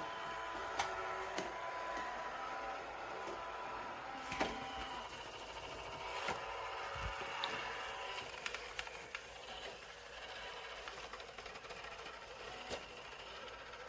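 iRobot Roomba j7+ robot vacuum running, its motor and brushes giving a steady whir, with a few sharp knocks scattered through it.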